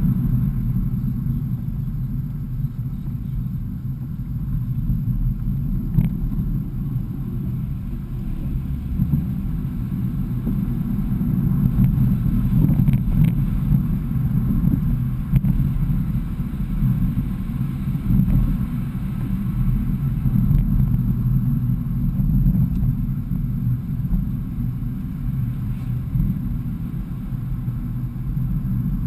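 BMW E46 driving along at a steady cruise, heard from inside the cabin: a continuous low rumble of engine and tyre noise that swells and eases slightly. There is a single sharp click about six seconds in.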